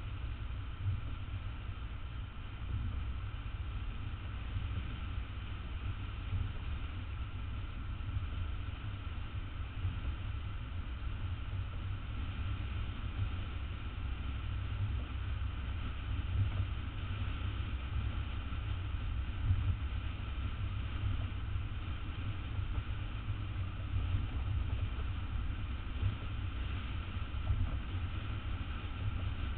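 Steady low rumble of street ambience with wind buffeting the microphone; no single event stands out.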